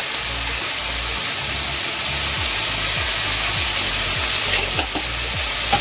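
Chicken breast sizzling steadily in olive oil in a frying pan.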